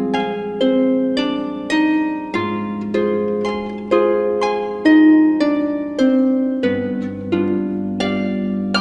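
Background music: a slow, harp-like melody of plucked notes, about two a second, over held low notes that change twice.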